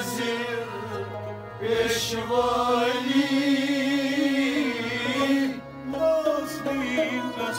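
Devotional song (naat) in praise of the Prophet: a singer draws out a long, wavering note over a steady, sustained instrumental drone.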